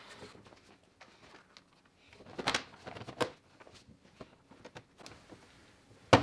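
Rubber and plastic intake air duct being handled and pushed back into place on the engine: soft rustling and scattered light clicks, a louder scrape about two and a half seconds in and another about three seconds in, and a sharp click near the end.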